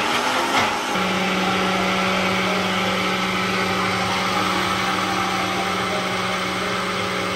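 Countertop blender running at high speed, pureeing a thick pasta sauce. The motor's pitch shifts and settles about a second in, then holds steady.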